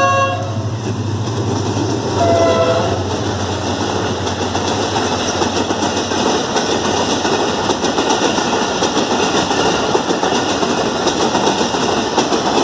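Diesel passenger train passing at speed: the locomotive's horn ends a blast just as it opens and gives another short blast about two seconds in, over the locomotive's engine. Then comes a steady rush of passing coaches, with the wheels clattering over the rail joints.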